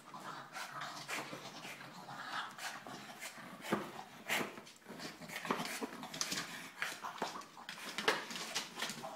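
French bulldog growling and breathing hard as it bites and paws at a giant tennis ball that its teeth cannot puncture, with irregular sharp scratches and knocks from its claws and teeth on the ball and the wooden floor.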